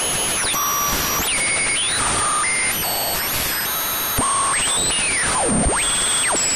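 Synthesized alien radio interference effect, like an odd radio being tuned: a steady hiss and crackle with whistling tones that jump between pitches and glide up and down. Near the end one whistle swoops far down and back up.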